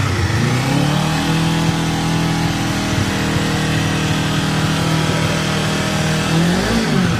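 2024 Kawasaki Ninja 500's parallel-twin engine revved while standing: the revs climb over about the first second, hold high and steady for about five seconds, then drop back and blip up again near the end. It has a fairly deep note, deeper than a Ninja 400's.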